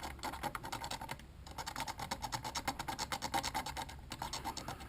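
Razor blade scraping flaking paint off the plastic buttons of a GM climate control panel, in quick short strokes several times a second, with a brief pause about a second in.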